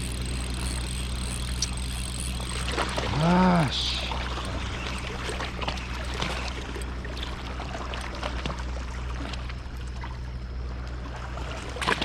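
Steady low engine hum, as from an idling boat, with water trickling and splashing. About three seconds in comes one short pitched sound that rises and falls, voice-like.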